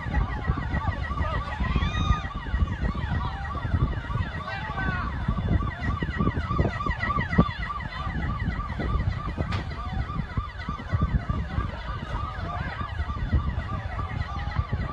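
Emergency vehicle siren in a fast yelp, rising and falling about three times a second, over a steady low rumble.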